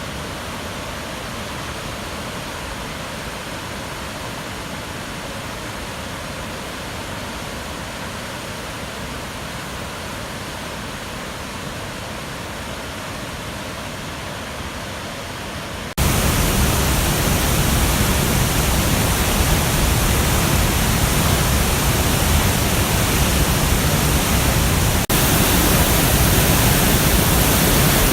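A river swollen by typhoon rain, its floodwater rushing in a steady, even noise. About halfway through the sound suddenly becomes much louder and heavier in the low end, with a brief dip near the end.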